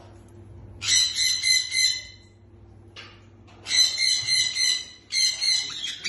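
Harsh squawks from a white-bellied caique in three bursts: one about a second in lasting over a second, another near four seconds in, and a third just after five seconds.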